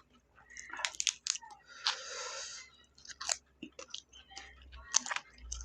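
Close-up chewing and biting into crunchy kerupuk (Indonesian fried crackers): a run of sharp, irregular crunches.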